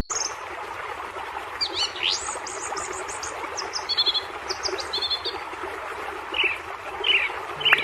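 Several birds chirping and whistling, some calls rising and falling in pitch, over a steady background hiss of outdoor ambience.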